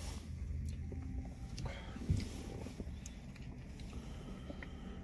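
Low steady hum in a car's cabin, with a few faint clicks and rustles and a short dull thump about two seconds in.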